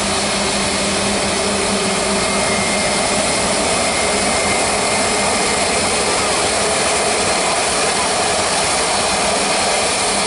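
Airbus A320neo's CFM LEAP-1A turbofan engines at taxi thrust as the airliner rolls past: a steady jet hum with faint whining tones over an even rush of noise.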